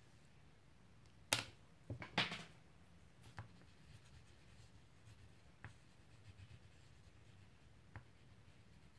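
Wax crayon on paper: a sharp tap about a second in, then a short scratchy stroke, followed by a few faint ticks as the crayon works over the page.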